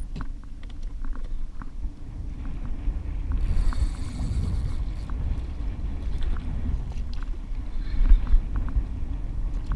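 Water rushing and slapping against the hull of a moving kayak, with a steady low rumble and scattered small clicks and knocks from the boat's fittings.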